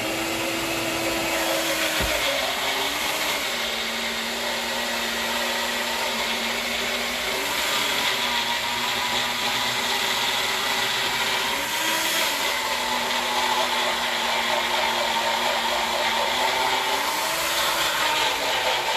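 Magic Bullet blender running continuously while blending thick hummus, its motor pitch dropping about two seconds in and then lifting briefly every four or five seconds as the load shifts.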